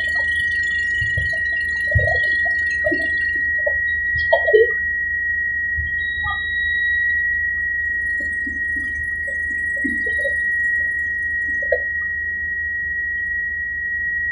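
Helicopter in flight: a steady high-pitched whine held on one note over a low rumble, with no change in pitch.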